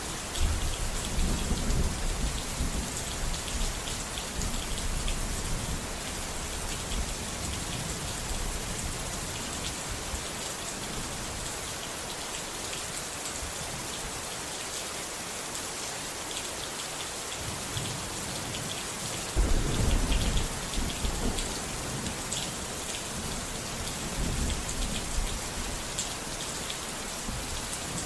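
Steady rain falling, with low rolling thunder rumbles: one near the start, the loudest about two-thirds of the way in, and a smaller one near the end.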